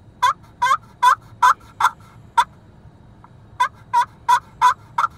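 Glass surface of a three-surface turkey pot call played with a wooden striker, giving loud, sharp turkey yelps that drop in pitch, about two and a half a second. Two runs, six yelps then five, with a pause of about a second between.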